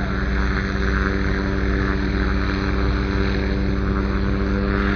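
Police helicopter's turbine engine and rotor running steadily, a constant engine whine over a rapid low rotor beat.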